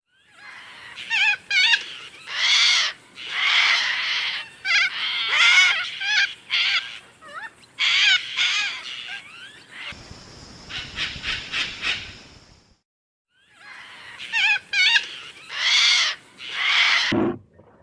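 Bird-like animal calls: quick runs of high chirps and arched cries. A steady high hiss fills a gap about ten seconds in, then a similar run of calls starts again.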